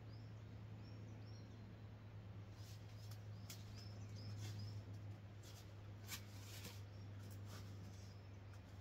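Quiet woodland ambience: a small bird repeats short high chirps, several a second, in a few runs. Scattered sharp clicks and crackles come through the middle, over a steady low hum.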